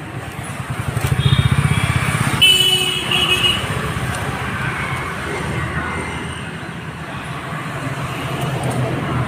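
Road traffic: a motor vehicle engine, most likely a motorcycle, runs close by and swells about a second in, and a vehicle horn toots briefly about two and a half seconds in, over a steady traffic rumble.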